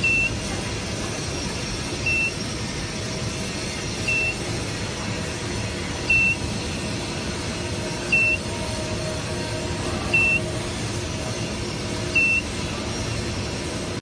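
Portable induction heat-treatment machine beeping: a short high beep about every two seconds, seven in all, over the steady rushing of its air-cooling fans.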